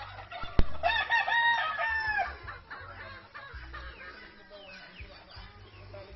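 A rooster crowing once, loud, from about a second in for roughly a second and a half, just after a sharp click. Afterwards the flock keeps up faint chirping and clucking.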